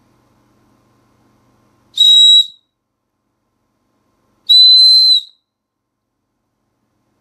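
Two short, very loud, shrill blasts of a small handmade toy whistle built into a capsule-toy insect figure, each a single steady high note. The second blast, about two and a half seconds later, is a little longer and a touch higher.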